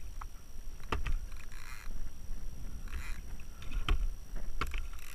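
Spanish mackerel thrashing on a plastic fishing kayak: a few sharp knocks against the hull and short splashes of water, over a low wind rumble on the microphone.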